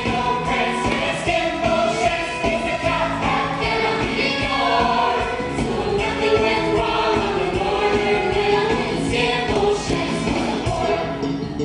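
Musical theatre cast singing together over a live pit band, recorded from the audience seats of a theatre.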